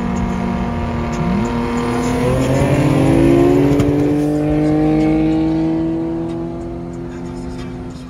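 Car engine accelerating hard, its pitch climbing steadily for a few seconds before the level eases off.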